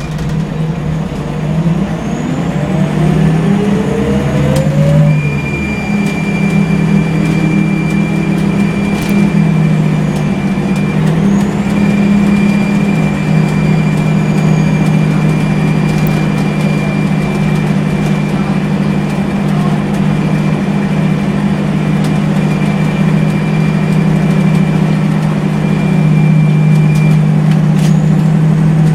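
Scania L94UB city bus's CNG engine and ZF five-speed automatic gearbox heard from inside the passenger cabin. The engine note rises as the bus pulls away, changes with a gear shift about five seconds in, then runs steadily with a thin high whine over it.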